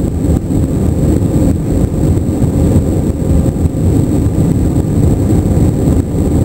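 Steady, loud rumble of an Airbus A321's jet engines and rushing air, heard from inside the passenger cabin, with a faint steady high whine over it.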